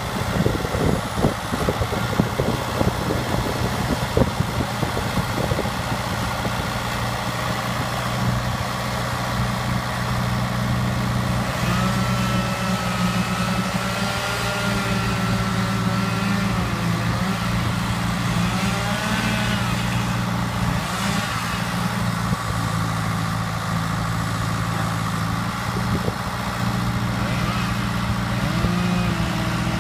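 Diesel engine of a farm tractor of about 100 hp running steadily at low working speed while it tows a laser-controlled grader levelling a sand base. A faint wavering whine rises and falls through the middle.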